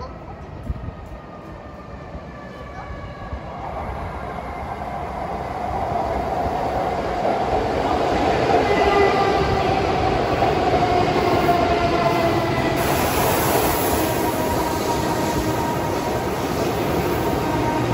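N700S West Kyushu Shinkansen Kamome train pulling into the station. It grows from faint to loud over the first several seconds, and its motors whine in several falling tones as it brakes, over the rush of the train running alongside.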